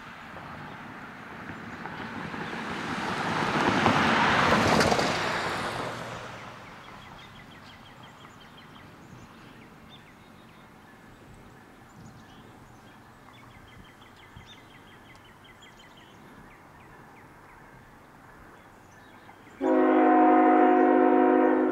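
A road vehicle passes on the wet road, its tyre hiss rising and fading over about five seconds. Near the end a CN freight locomotive's multi-note air horn starts abruptly and is held, sounding for the grade crossing as the train approaches.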